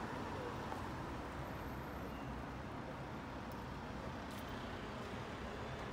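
Steady city street traffic noise, a low even rumble of passing vehicles.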